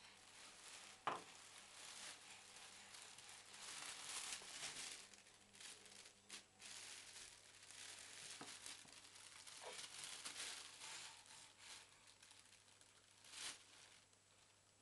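Plastic carrier bag crinkling and rustling in uneven swells as a baby grabs and drags it. A sharp knock about a second in, and a shorter one near the end.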